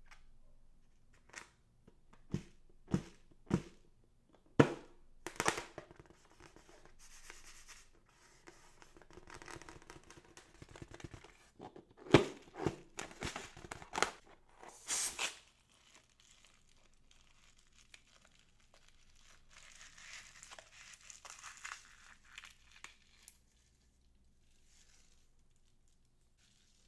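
Close-up handling of crafting materials: a series of sharp snaps and clicks, with crinkling and tearing in between.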